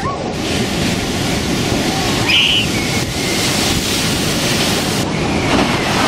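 Heavy storm waves breaking against a seawall, a dense continuous roar of crashing surf and spray. A short high-pitched sound cuts through about two seconds in.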